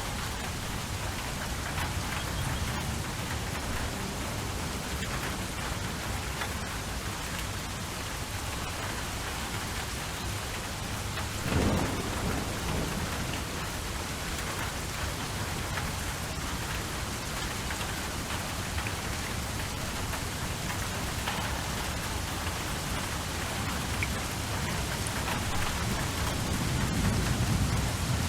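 Steady heavy rain, with a sharp crack of thunder about twelve seconds in and a low rolling rumble of thunder building near the end.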